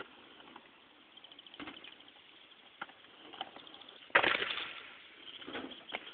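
Aggressive inline skates on a concrete skatepark: a few scattered clacks, then a loud hit about four seconds in followed by a scraping rattle that fades within a second, as of skates landing and sliding on the box.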